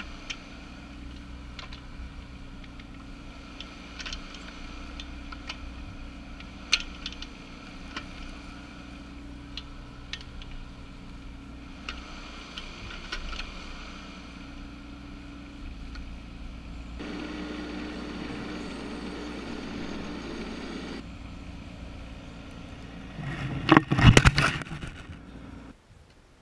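Bobcat 418 mini excavator's engine running steadily while it digs and dumps dirt, with scattered sharp clanks of the bucket and stones. The engine gets louder for a few seconds past the middle, and a loud burst of clattering comes near the end.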